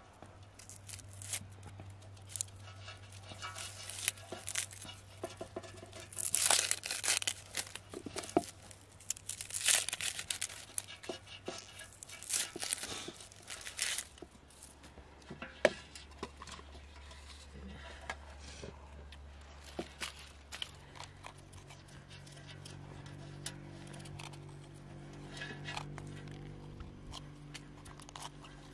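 Irregular rustling, crinkling and tearing noises, busiest and loudest in the first half, over a faint low steady hum that changes pitch a few times.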